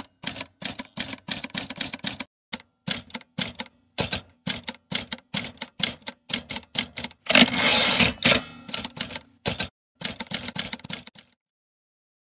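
Typewriter keys clacking in quick, uneven runs as a typing sound effect, with one longer, louder rasp a little past seven seconds in. The clicks stop about a second before the end.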